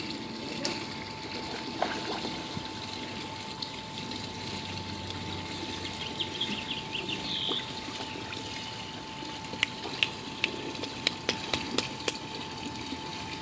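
Swimming-pool water trickling and lapping, with a thin steady tone underneath. A run of sharp clicks comes near the end.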